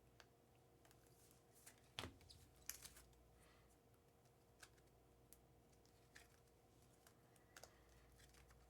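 Near silence broken by faint, scattered light clicks and taps, the sharpest about two seconds in.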